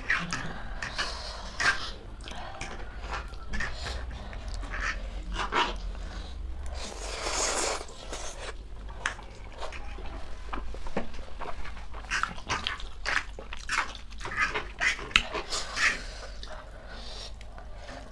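Close-up eating sounds of spicy instant noodles: slurping, chewing and forks on plates, with sharp breaths blown out against the chili heat. One long breathy exhale comes about seven seconds in.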